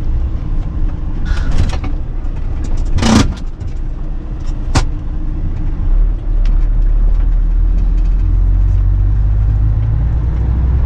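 Inside a heavy truck's cab while driving: steady engine and road rumble, with a few sharp knocks or rattles, the loudest about three seconds in and another near five seconds. From about six seconds in the low rumble grows louder and steadier.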